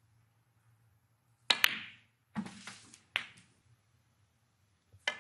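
Snooker balls clicking: a sharp double click about a second and a half in as the cue strikes the cue ball and the cue ball strikes an object ball, then a few more single clicks of balls striking each other, each ringing briefly.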